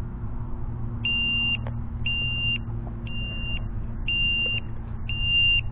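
High-pitched electronic beeper sounding five evenly spaced beeps, one a second, each about half a second long.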